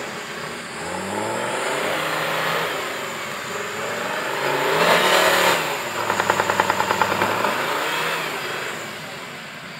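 Off-road 4x4's engine revving up and down as it works through deep mud, with a loud surge about five seconds in. A rapid pulsing of about a dozen beats a second follows, dying away near the end.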